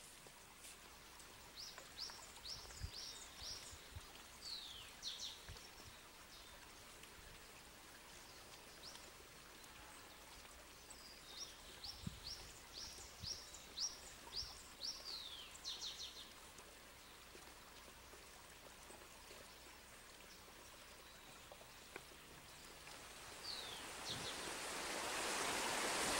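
A songbird singing: two runs of quick, high chirps about ten seconds apart, then a lone chirp, over faint outdoor ambience. A rushing noise swells near the end.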